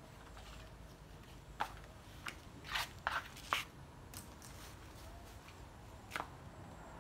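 Footsteps on a tiled patio: a scattering of sharp taps and scuffs, loudest between about two and four seconds in, with one more near the end.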